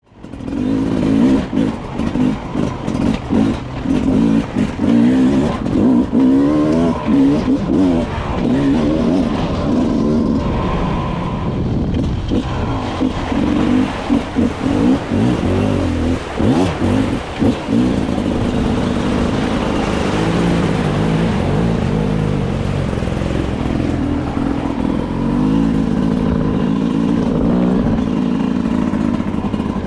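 Beta 300 two-stroke enduro motorcycle engine being ridden, its revs rising and falling constantly as the throttle is opened and closed, with short drops between blips and steadier running in the last third.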